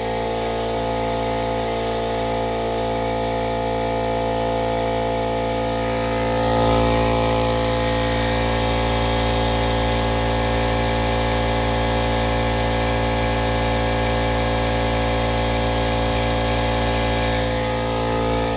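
Central Pneumatic 21-gallon 2.5 HP oil-lubricated air compressor running steadily under load with a constant mechanical hum, building tank pressure on newly replaced reed valves.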